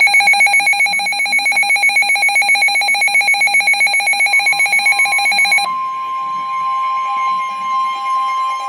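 Emergency alert attention tones: a loud, rapidly pulsing ringing tone that cuts off about five and a half seconds in and gives way to a steady single tone, signalling an incoming Winter Storm Warning.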